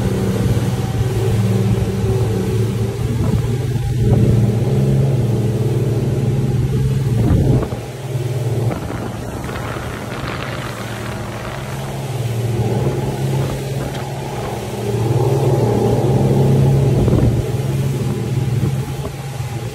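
A motorboat's engine running steadily under way, a constant low hum with wind and water hiss. The hum eases off about eight seconds in and swells again a few seconds later.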